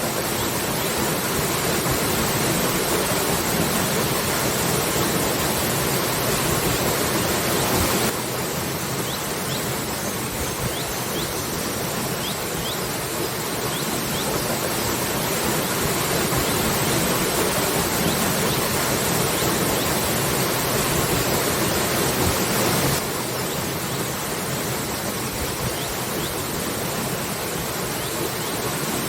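Waterfall: a steady rush of falling water, dropping suddenly to a slightly different level twice.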